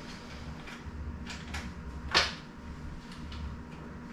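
Handling noises from unpacking and working on an e-bike in its cardboard shipping box: light rustles and clicks, with one sharp knock about two seconds in, over a steady low hum.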